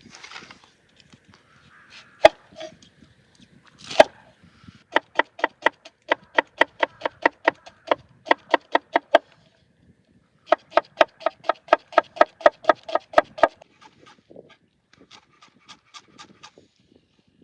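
Kitchen knife chopping rapidly on a wooden cutting board, at about four to five even strokes a second, in two long runs and a lighter short run near the end. Two single knocks on the board come before the first run.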